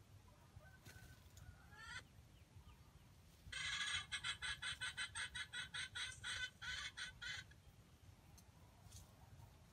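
A wild junglefowl chicken clucking: a rapid, even run of clucks, about four a second, lasting some four seconds, starting a few seconds in. A few faint rising calls come about a second in.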